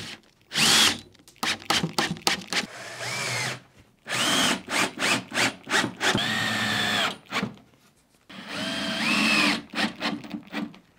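Cordless drill fitted with a countersink drill bit boring pilot holes into the edge of an OSB board, in several short bursts. Each time the motor's whine rises as it spins up and falls as it slows.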